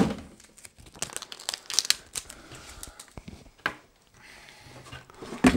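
Crinkling and rustling of packaging while a new plastic cat litter box is handled, broken by a few sharp clicks, the loudest about three and a half seconds in.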